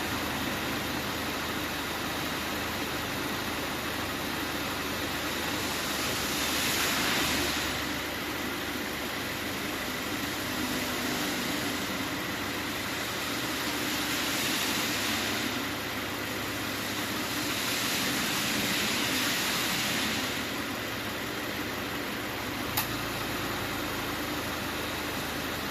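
2015 Subaru Forester 2.0T idling with the air conditioning running, a steady engine hum. A rushing noise swells three times, and there is one sharp click near the end.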